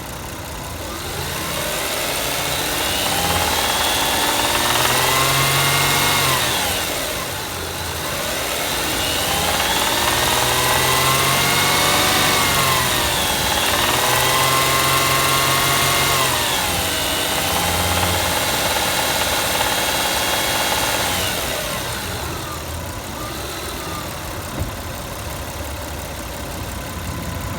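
Toyota 1MZ-FE V6 engine of a 2003 Camry, revved up and let fall back several times, then idling for the last few seconds. It has a knock that the owner puts down to either rod knock or valve lifters needing adjustment.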